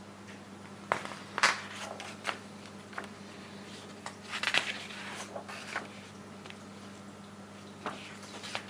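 Paper pages of a model-kit instruction booklet being turned, short crinkles and rustles in a few bunches. A faint steady hum runs underneath.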